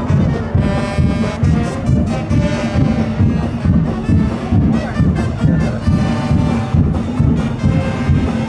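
Festival street band playing: drums beating a steady rhythm under trumpets and other brass.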